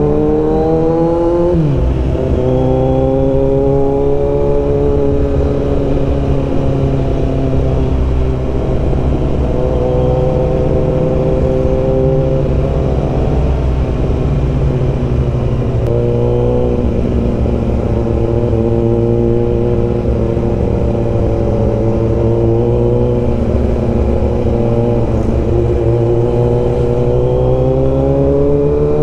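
Kawasaki Z900's inline-four engine and exhaust heard from the rider's seat while riding in traffic, revs climbing and falling with the throttle and gear changes, with a sharp drop in pitch about a second and a half in and another break around halfway through.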